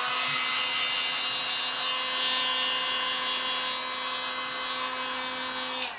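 Electric heat gun running: a steady fan-motor hum with a rush of blown air, aimed at a graphics-card heatsink to heat it. It cuts off abruptly near the end as it is switched off.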